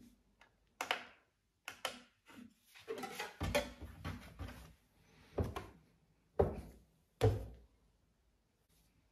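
Dull thuds and knocks of pizza dough being handled on a worktop: a lump pressed and worked against the surface and set down on a glass kitchen scale. About six separate knocks, with a longer stretch of rubbing and pressing in the middle.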